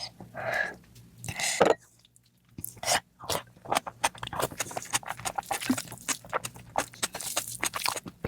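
Close-miked wet chewing and lip smacking of someone eating curry with rice or naan, a quick run of irregular clicks and squelches that gets busier in the second half.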